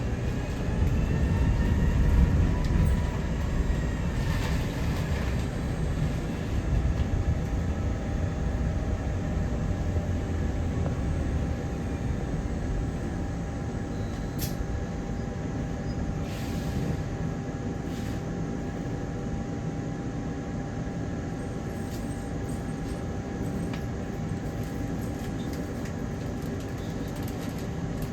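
Double-decker bus running, heard from inside the passenger cabin: engine and road rumble, heavier for about the first twelve seconds, then settling to a steadier, quieter drone.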